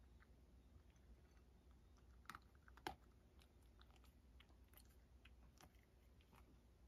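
Faint crunching of a cat chewing dry kibble, with two louder clicks about two and three seconds in.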